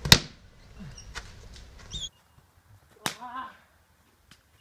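Cricket bat hitting the ball with a sharp crack right at the start. About three seconds in there is a second sharp hit, followed by a short shout.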